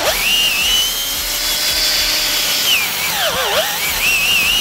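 Cordless drill boring a two-stage bit into a pine trunk, chips tearing out, with a steady high motor whine. The whine sags and recovers twice, right at the start and about three and a half seconds in, as the bit loads up in the wood.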